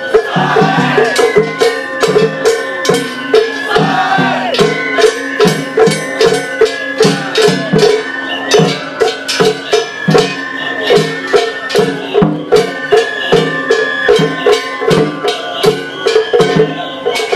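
Japanese festival ohayashi played on a float: shime-daiko drums and clanging metal hand gongs in a fast, steady beat.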